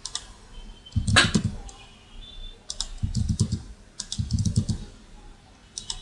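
Computer keyboard keys being typed in short bursts of a few keystrokes each, with pauses in between.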